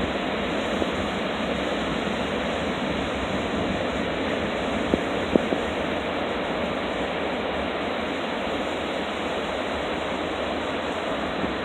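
Pacific Ocean surf washing in, a steady unbroken rush of waves, with two short soft knocks about five seconds in.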